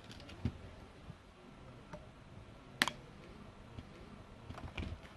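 A few scattered clicks and dull knocks, typical of small parts and tools being handled on a workbench; the sharpest click comes about three seconds in.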